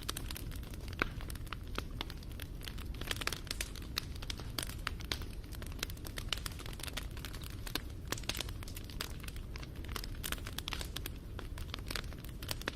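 Wood fire crackling: many irregular sharp pops and snaps over a steady low rumble of burning.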